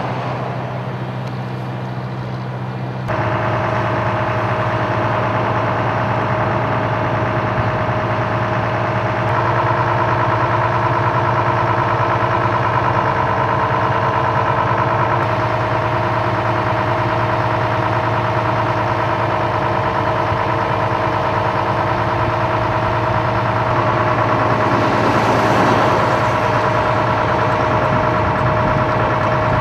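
Vehicle engine idling steadily, a constant hum with a high steady whine over it; it steps up in loudness about three seconds in.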